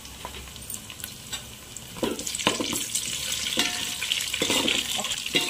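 Sliced onions and chillies sizzling in hot oil in a metal pan, frying toward light golden. From about two seconds in, a spatula stirs them, scraping and knocking against the pan over the sizzle.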